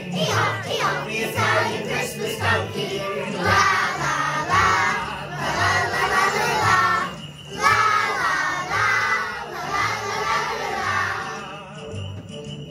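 A group of young children singing and shouting along loudly to a Christmas song's backing track, which has a steady bass beat. The voices drop away near the end, leaving the track.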